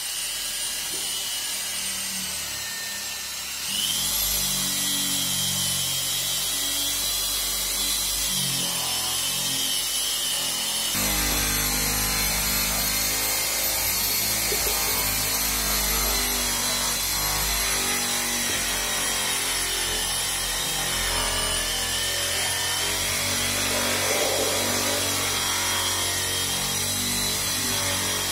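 Handheld electric car polisher running on the paintwork: a steady, high motor whine that steps up in pitch about four seconds in and then wavers slightly.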